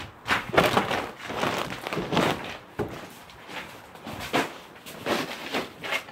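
Irregular knocks, bumps and rustling: handling noise from a phone camera being carried and jostled, with objects knocked about.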